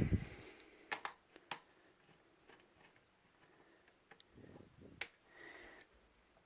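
A few sparse sharp clicks and taps, with fainter ticks between them, as a screwdriver and hands work at a small plastic action camera's screws and casing.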